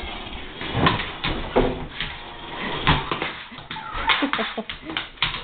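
Bernese mountain dog puppy scuffling and playing with a toy: a run of knocks and bumps, with a few short high-pitched sounds about four seconds in.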